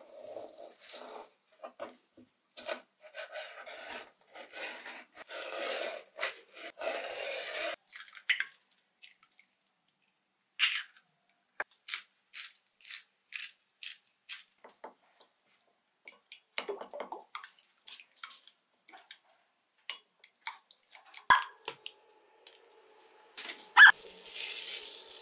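Kitchen prep sounds: a hand rubbing a cucumber on a plastic tray in quick repeated scraping strokes for the first several seconds, then a run of evenly spaced clicks from a pepper grinder over eggs in a glass jug, and scattered light knocks. Near the end there is a loud knock, then a spatula stirring water in a pot on an electric hob that hums steadily.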